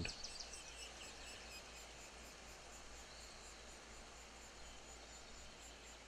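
Faint, high chirping calls of woodpecker nestlings begging from inside their tree-hole nest, over a quiet outdoor hiss.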